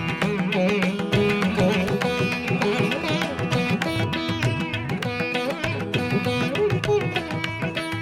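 Instrumental music in an Indian classical style: melodic lines that slide and bend in pitch over a steady, busy beat of drum strokes.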